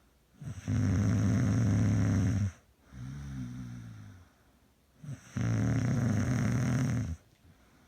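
A sleeping person snoring: two long, loud snores of about two seconds each, some four seconds apart, with a softer, falling snore between them.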